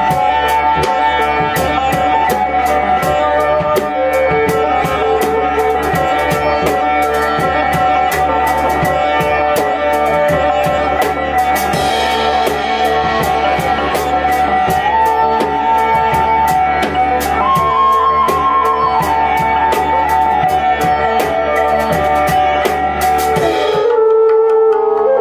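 Live band music: flute melody over a drum kit keeping a fast, steady beat with cymbals, with plucked strings and a low didgeridoo drone underneath. About a second before the end the drums stop abruptly and a steady held tone takes over.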